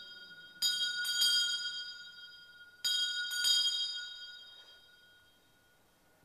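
Altar bells rung for the elevation of the chalice after the consecration. Two rings, about a second in and about three seconds in, each a quick double stroke, with several clear high tones that die away over a couple of seconds.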